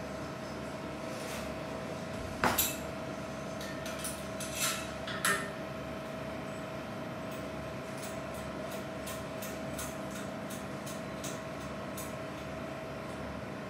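Metal clinks and knocks of hand tools against a crankshaft and its clamps on a balancing machine: a sharp clank about two and a half seconds in, a few smaller knocks soon after, then a run of light ticks. A steady machine hum with a thin whine runs underneath.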